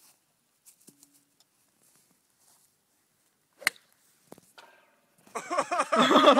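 A single sharp ping about three and a half seconds in: a golf ball striking an overhead telegraph cable. A man then yells excitedly near the end.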